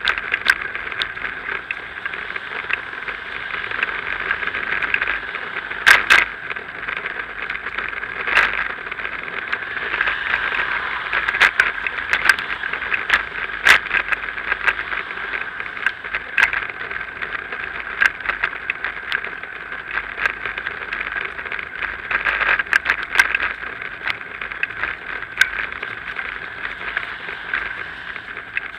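Bicycle rolling along a paved path, heard through a bike-mounted action camera: a steady hiss of tyre and road noise with frequent sharp rattles and knocks from bumps, the loudest about six seconds in.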